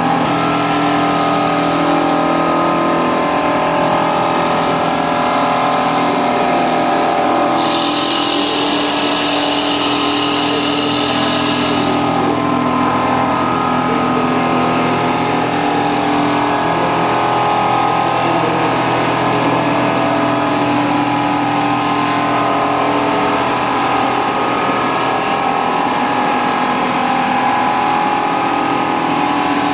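Richpeace large-format quilting machine running steadily, a continuous mechanical hum made up of several constant tones. About eight seconds in, a higher hiss joins for about four seconds, then stops.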